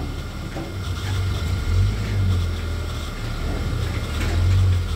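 A vehicle engine running with a low, steady rumble that swells about two seconds in and again near the end.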